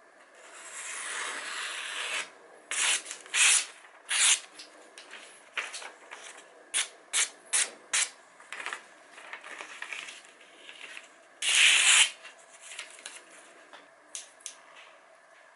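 Freshly sharpened Zwilling kitchen knife slicing through sheets of paper, a test of the edge's sharpness. One long slice comes about a second in, then a run of short quick cuts and paper rustles, with one louder cut or rustle near the end.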